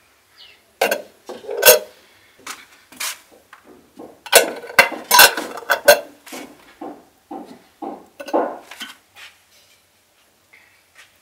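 Glass jars with metal screw lids being set down in a large aluminium pot and knocking against one another and the pot wall: a series of clinks and knocks in three clusters.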